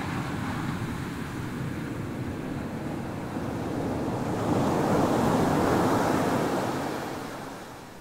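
Ocean surf on a sandy beach: a wave breaks and its foam washes up the shore. The roar builds to its loudest a little past the middle, then dies away near the end.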